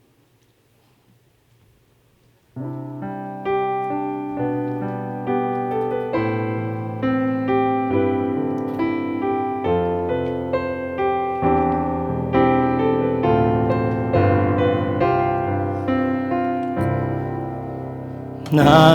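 Near silence for about two and a half seconds, then a piano plays the introduction to a worship song, with chords struck about once a second. Singing comes in at the very end.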